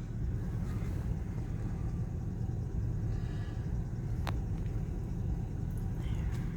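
Ford Econoline E-250 van idling while stopped, a steady low rumble heard inside the cabin, with a single short click about four seconds in.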